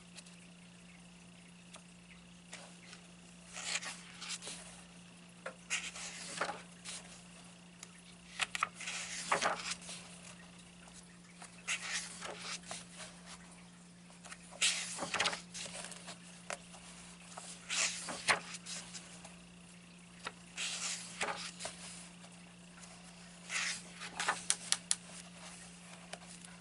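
Pages of a paperback colouring book being turned and smoothed flat by hand: short bursts of paper rustling every few seconds, over a steady low hum.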